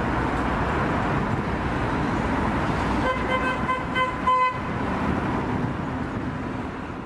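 Steady city road traffic noise. A car horn toots several short times about three seconds in, the last toot the loudest, and the traffic noise then slowly fades out.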